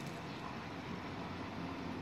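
Steady low background noise with no clicks or knocks. Any whir from the spinning fidget spinner is not distinct from it.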